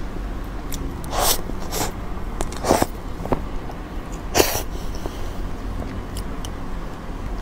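Close-miked eating of soft cream cake: four short, breathy wet mouth sounds as forkfuls of cream are taken in, spread over the first four and a half seconds, with a low steady hum underneath.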